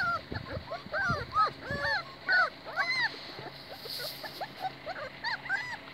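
A litter of 26-day-old Kishu Inu puppies whimpering and whining: a steady string of short, high cries, each rising and falling in pitch, a few every second.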